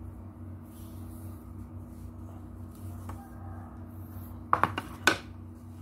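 Steady low electrical room hum, then a cluster of sharp clicks and crinkling rustles about four and a half seconds in, from things on the table being handled.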